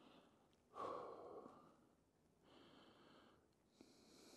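A man breathing out audibly once, about a second in, while holding a deep shoulder stretch, then a softer breath a couple of seconds later; otherwise near silence.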